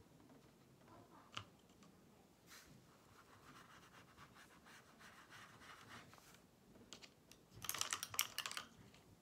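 Faint scratching of a watercolour brush worked over paper, with a sharp click about a second in. Near the end comes a louder burst of rapid clicks and rustling lasting about a second.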